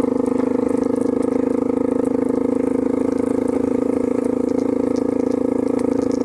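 A motor vehicle's engine running steadily at an even speed, with a fast, even pulse and no change in pitch.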